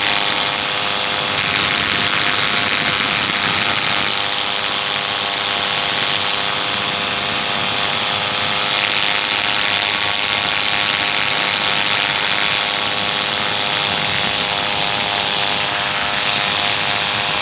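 Paramotor engine and propeller running steadily in flight, a constant even drone with a rush of air over it.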